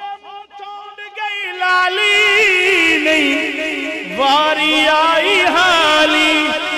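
Male naat reciter singing a wordless, melismatic vocal run into a microphone, with wavering, ornamented pitch over a steady held background note; it grows loud about a second and a half in.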